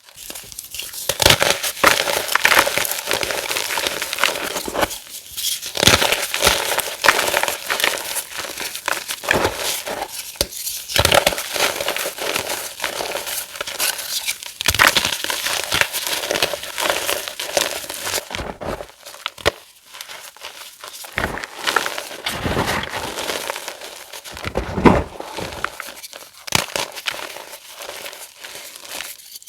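Reformed gym chalk being crushed and crumbled, a dense run of crunching and crackling with a few brief pauses.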